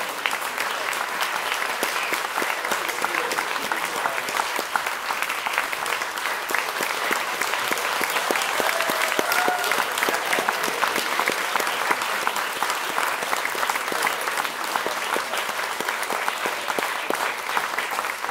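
Audience applause, many hands clapping steadily. It swells a little in the middle, with a few faint voices among the clapping.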